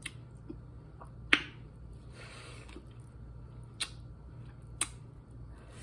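Close-up eating sounds of boiled corn on the cob: four sharp wet mouth smacks and clicks, the loudest about a second and a half in.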